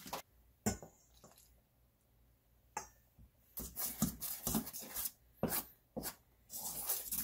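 A metal mixing fork clinking and scraping against a stainless steel bowl while stirring buttermilk into biscuit mix: a couple of single sharp clicks in the first three seconds, then a run of quick stirring strokes through the second half.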